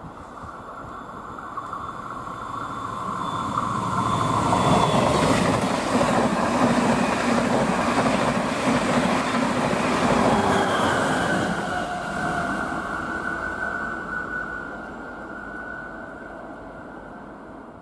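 An Irish Rail 201 class diesel locomotive-hauled passenger train passing at speed. The rumble and wheel-on-rail noise build over about four seconds, stay loud for several seconds as the coaches go by, then fade away slowly.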